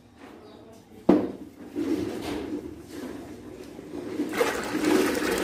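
A sharp knock about a second in. Then, from about four seconds in, water starts pouring from a plastic jug into a large aluminium pot of liquid gram-flour batter.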